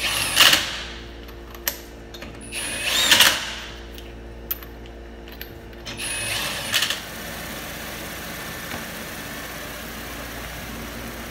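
Cordless impact wrench driving lug nuts onto a wheel in three short bursts about three seconds apart. Then a steady running noise from the Buick LaCrosse's V6 engine, started to check that the new serpentine belt stays aligned on its pulleys.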